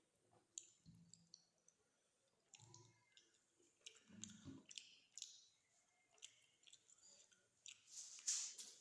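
Faint close-up eating sounds: irregular wet mouth clicks and chewing, with a few low mouth noises and a louder burst near the end.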